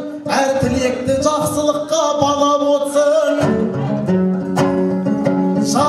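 Two-string dombra strummed in a quick, even rhythm while a Kazakh akyn sings along in long held notes; about halfway through, the melody drops to a lower pitch.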